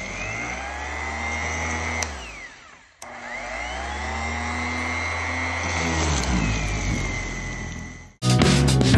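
Bauer random orbital sander running with 60-grit paper on a wooden desktop: a motor whine that winds up, winds down about two seconds in, starts again about three seconds in, and runs steadily until near the end.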